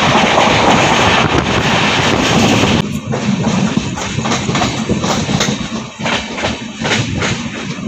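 Pandian Express passenger train running on the track: a loud, even rush of wheel and rail noise. About three seconds in the sound abruptly turns quieter and duller, broken by irregular clicks and knocks of rail clatter.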